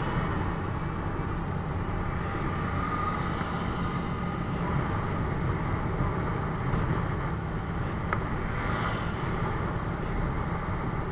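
Motorcycle engine running steadily at cruising speed, under a steady rush of riding noise.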